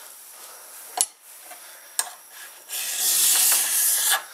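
Two sharp knocks about a second apart, then a flat file rasping along the rail edge of a chainsaw guide bar clamped in a vise: one long stroke starting a little before three seconds in, levelling the rail where the chain has worn it.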